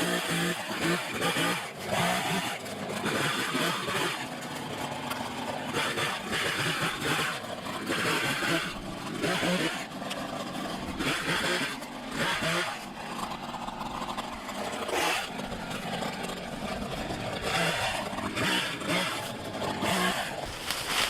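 Two-stroke chainsaw running and cutting, its engine revving up and easing back over and over.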